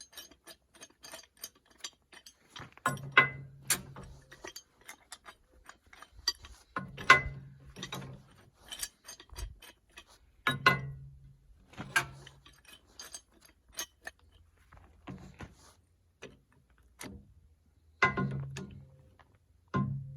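Metal tool, a screwdriver, clicking and scraping against the steel retaining clip of a tractor hydraulic cylinder as the clip is worked loose, with about six louder metallic knocks that each ring briefly.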